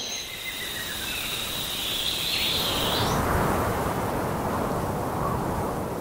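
Forest ambience: a steady high-pitched trill that swells and ends with an upward sweep about three seconds in, over an even rushing noise that grows louder through the middle.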